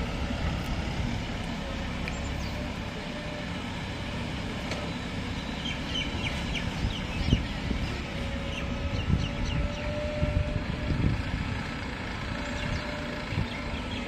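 Tractor engine running steadily as it pulls away with an empty tipping trolley, with a few thuds and scrapes of a hand hoe chopping into loose soil, the sharpest about seven seconds in.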